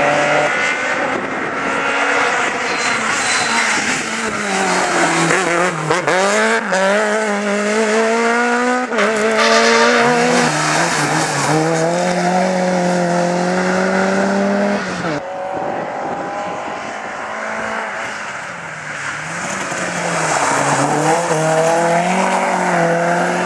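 Rally cars, among them Peugeot 205s, driven hard through a corner one after another. Their engines rev up in pitch and drop back at each gear change, with sudden cuts from one car to the next.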